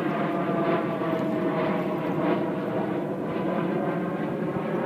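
An airplane flying low overhead: a steady engine drone.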